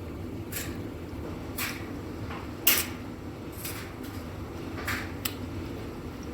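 Short clicks and crackles of rambutan being handled and eaten, about seven in all, the loudest a little before the middle, over a steady low hum.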